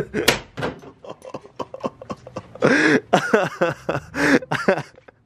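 Young men laughing in bursts, with a sharp knock just after the start.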